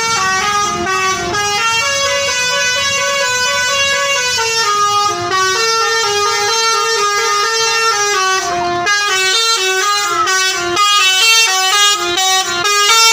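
Basuri V3 'telolet' multi-tone bus horn playing a tune, one loud horn note stepping to the next without pause. After about nine seconds the notes become shorter and quicker.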